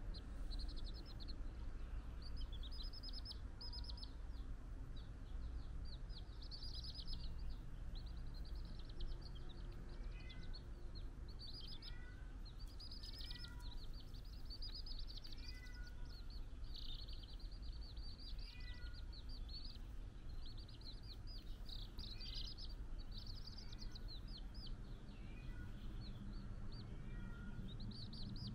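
A crowd of young domestic chicks peeping without pause, many short high-pitched cheeps overlapping, over a steady low hum.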